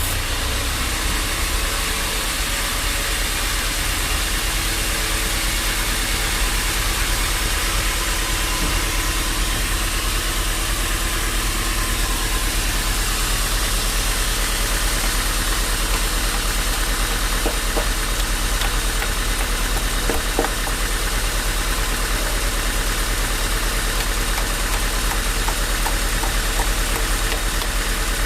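Band sawmill running steadily: a constant low machine hum under an even, noisy wash, with a few faint ticks in the second half.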